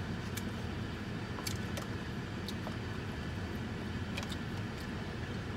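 Steady low hum of a parked car running, heard from inside the cabin, with scattered light clicks from eating with a plastic fork out of a takeout box.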